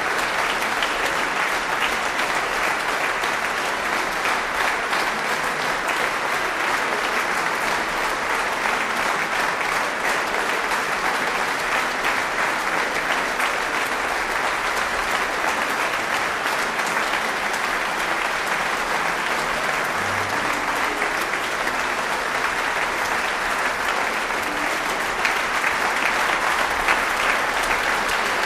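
Large audience applauding: dense, steady clapping that swells a little near the end.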